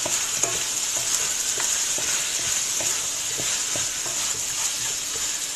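Chicken thighs and chopped tomatoes sautéing in oil in a metal pot, a steady sizzle, while a wooden spatula stirs them with light scrapes and knocks against the pot about twice a second.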